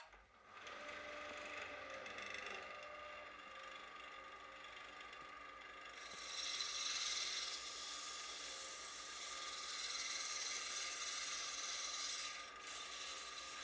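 Wood lathe starting up and then running steadily with a constant motor whine. From about six seconds in, abrasive paper pressed against the spinning turned box adds a rushing sanding noise.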